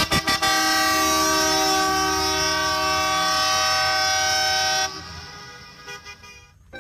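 Horn blasts: a few quick toots, then one long multi-note horn chord held for about four seconds that cuts off, followed by faint scattered musical tones.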